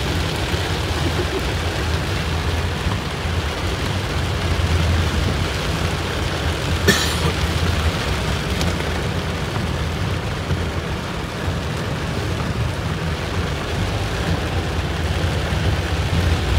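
Heavy rain pattering on a car's body and windshield, heard from inside the moving car's cabin over a steady low rumble of engine and road noise. A single sharp click about seven seconds in.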